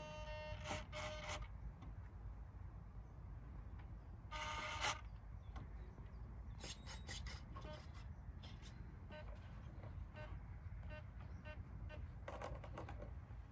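Two short pitched tones, the first lasting about a second and a half at the start, the second about half a second long some four seconds in and ending in a sharp click. Scattered light clicks and a steady low rumble run underneath.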